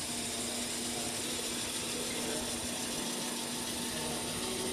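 CNC metal spinning machine running steadily as it forms an antenna housing on the mandrel: an even machine hum with a constant low tone over hiss.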